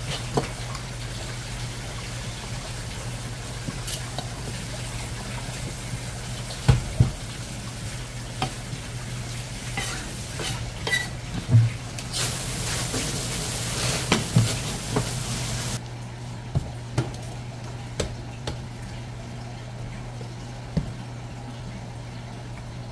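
Knife and utensil sounds at a cutting board during sashimi preparation: scattered clicks and knocks over a steady low hum, with a few seconds of hiss about halfway through.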